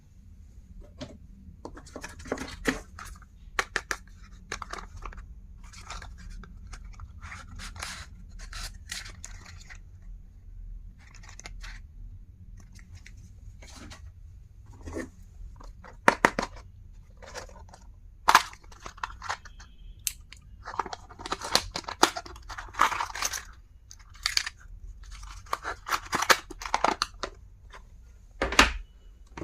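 Packaging being unboxed by hand: irregular rustling and tearing with sharp clicks and snaps, some louder strokes in the second half.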